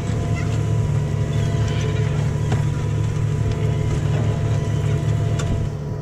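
New Holland tractor's diesel engine running steadily under load, pulling a plough, heard from inside the cab: an even low drone with a faint steady whine above it.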